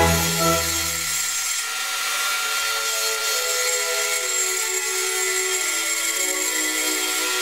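A wood lathe spins a eucalyptus spindle while a hand-held turning tool shaves it, making a steady cutting hiss with a faint steady whine. Underneath, soft background string music plays low sustained notes that step downward.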